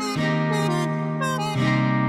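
Background music: plucked guitar over sustained chords that change about every second and a half.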